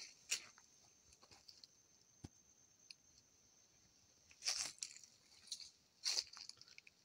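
Faint crunching rustles, three short bursts: one just after the start, one at about four and a half seconds and one just after six seconds. A steady faint high hiss runs beneath them.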